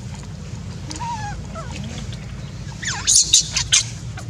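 Newborn macaque infant calling: a few faint sliding coos, then from about three seconds in a run of loud, high-pitched screams in quick succession, the distress cries of a baby monkey.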